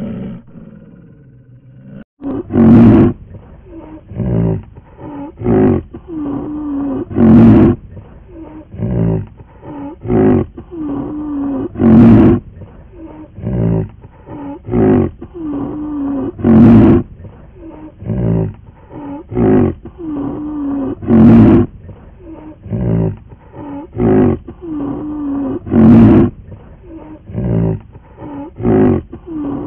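A large animal's roars and grunts: a loud roar about every four and a half seconds with shorter grunts between, repeating in an even cycle that starts about two seconds in.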